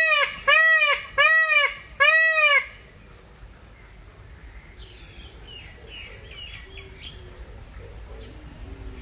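Male Indian peafowl calling: a rapid run of about four loud, arching, honking cries, under a second apart, that stops about three seconds in. Faint chirps of small birds follow.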